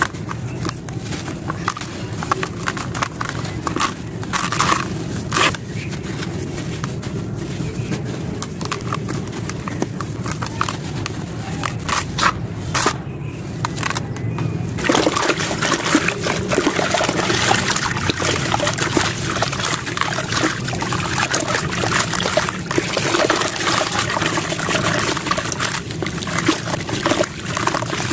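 Wet, gritty sand-cement clumps being crushed and crumbled: a steady crackle of many small crunches, louder and denser from about halfway.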